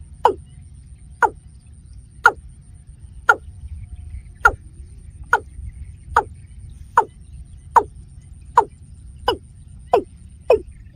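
Watercock calling: a series of short, downward-sliding notes about one a second, quickening near the end, over a low steady rumble.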